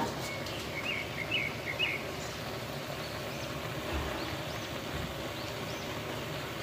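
Faint bird chirps, a short run of them about a second in, over a steady background hiss, with a single brief knock right at the start.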